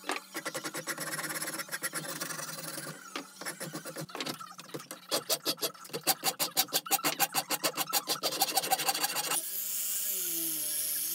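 A metal file rasping across a wooden hammer handle held in a bench vise, shaping it in quick, even strokes, several a second, with a couple of short pauses. Near the end the filing stops and a steady hum with a wavering pitch takes over.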